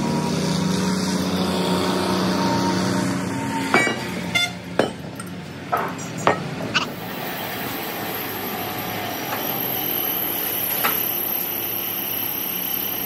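Workshop noise: a machine hums steadily for the first few seconds, then about seven sharp metal knocks and clanks come at uneven intervals, with a faint high whine under the second half.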